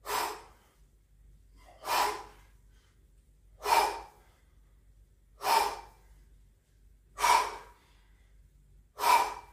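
A man breathing out hard in short, forceful breaths, six in all, about one every two seconds, with each rep of kettlebell Russian swings.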